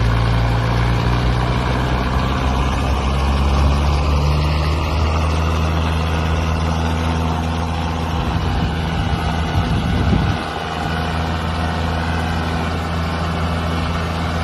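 Mahindra Arjun Novo 605 DI tractor's diesel engine running hard under load as it tows a stuck bus through sand, with a steady deep note that roughens for a couple of seconds about eight seconds in.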